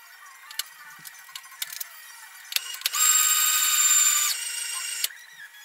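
Milling machine table power feed: a few clicks, then its motor whines steadily for about two seconds as it drives the table along. The whine drops in level about halfway through and stops.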